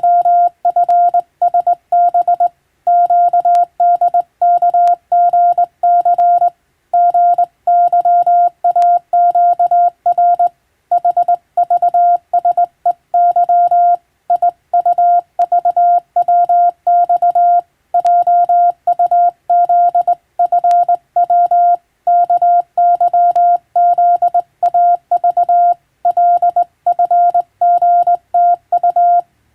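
Morse code (CW) tone at a steady pitch of about 700 Hz, keyed on and off in rapid dots and dashes with short pauses between characters and words.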